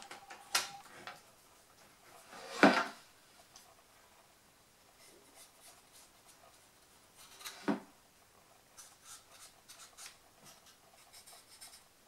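A plastic optical-drive caddy being handled, with a sharp knock about two and a half seconds in and a lighter one near eight seconds. Near the end come a run of faint short scratches of a pen marking the caddy where the tab is to be cut away.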